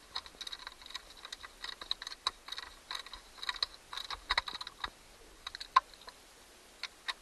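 Irregular light clicks and taps of hard plastic parts being handled: the LCD clock's plastic housing and small components knocking together.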